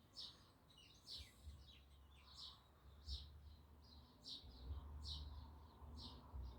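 A small bird chirping repeatedly in the background, short high notes that slide downward, roughly one or two a second, with a faint low rumble underneath.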